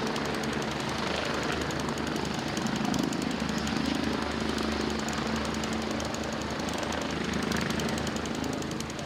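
Medical helicopter running on the ground, its rotors turning with a fast, steady chopping pulse over a constant engine hum.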